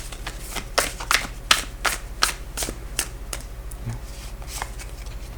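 Osho Zen Tarot deck being shuffled by hand, a crisp card snap about two to three times a second that thins out near the end, over a faint steady low hum.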